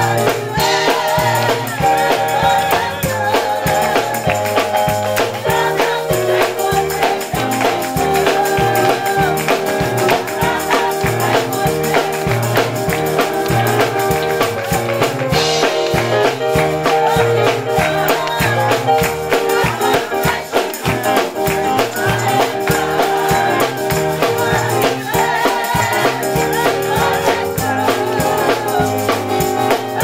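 Choir of mixed voices singing a gospel song with band accompaniment: a bass line under the voices and a steady percussion beat.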